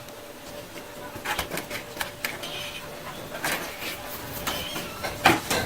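Irregular light clicks and knocks, a few to a second, over a faint steady hum.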